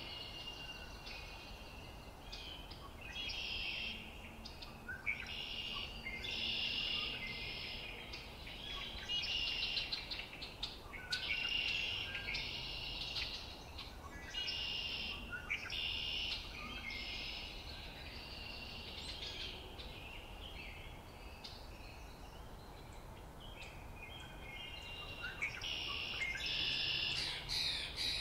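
Birds chirping and calling in repeated short bursts over a steady background drone of insects.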